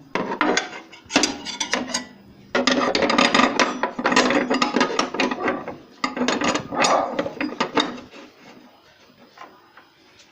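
Hand-handled metal saw parts on the Bosch GTS 10 XC table saw: the blade spanner being clipped back into its holder on the side of the saw, a dense run of clicks, rattles and scrapes that stops about eight seconds in.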